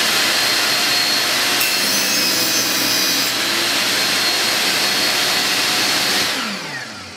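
Vevor portable table saw running at full speed, its blade cutting through a piece of 3/4-inch plywood from about one and a half to three seconds in. A little after six seconds it is switched off, and the motor winds down quickly in a falling whine under its motor brake.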